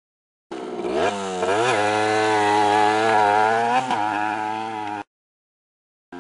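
Two-stroke single-cylinder engine of a Yamaha DT80 LC2 dirt bike being ridden, revving up about a second in and then running at a high, buzzy pitch with small rises and dips. The sound begins and cuts off abruptly, about half a second and five seconds in.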